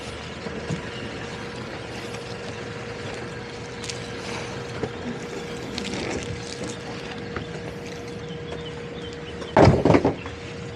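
Towboat's twin outboard motors idling, a steady hum with a faint even tone. About a second before the end comes a short burst of loud thumps.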